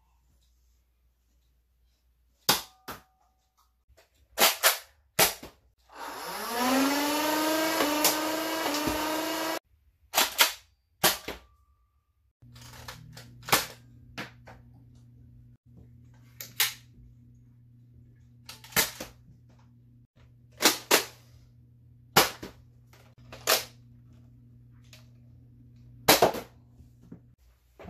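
Toy foam-dart blasters (Nerf and Buzz Bee) firing one shot after another: sharp clacks and pops, with a rising motor-like whine lasting about three and a half seconds partway through. Later, six evenly spaced shots over a low steady hum, then one last shot near the end.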